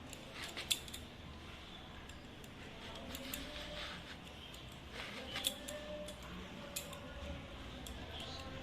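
Eggplant being cut into long strips: a few light, scattered clicks and taps of the blade over a faint background hum.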